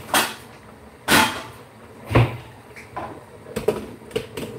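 A series of household knocks and clunks. Three sharp ones come about a second apart, the third a dull thud, followed by several lighter clicks near the end.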